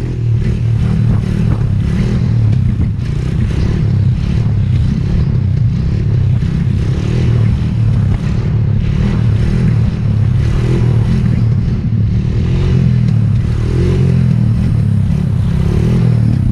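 Honda TRX250EX ATV's single-cylinder four-stroke engine running as the quad is ridden along, at a fairly steady, even level.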